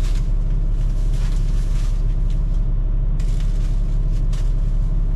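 Steady low rumble of a semi truck's diesel engine running.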